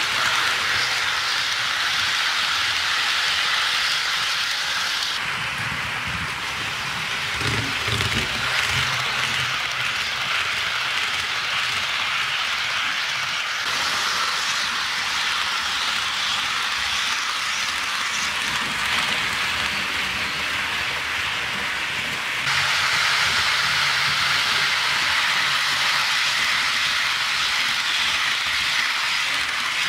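HO scale model freight train running on sectional track: a steady hissing rattle of wheels rolling on the rails, with a faint low hum under it. Its tone shifts abruptly three times.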